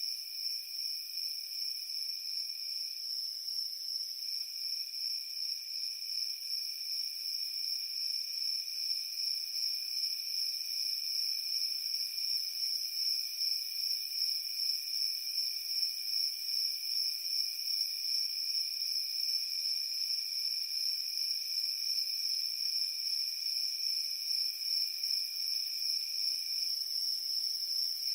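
Night chorus of crickets: a steady, high, pulsing trill, with a second, lower trill that breaks off briefly about three seconds in and stops near the end.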